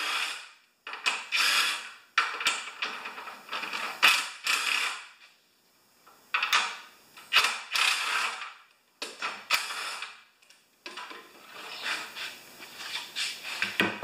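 Cordless drill-driver running in a string of short bursts, about a second each with brief pauses and clicks between, backing out the bolts that hold the top cover on a Tecumseh lawnmower engine.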